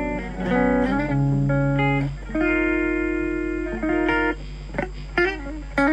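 Strat-style electric guitar played through a Blackstar ID:Core Stereo 10 V2 practice amp on a clean channel with the effects switched off. A run of chords and single notes changes about every half second, with one chord left ringing for over a second in the middle.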